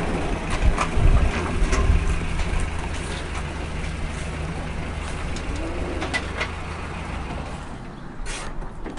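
Pickup truck engine running at low speed as the truck pulls into a driveway, a steady low hum with a few knocks about a second in; the engine sound fades near the end.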